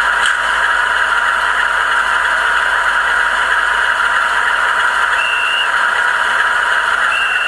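Howes DCC sound decoder in a Bachmann OO-gauge class 47 model locomotive, playing a steady diesel engine idle through the model's small speaker. Two short high squeaks come in the second half.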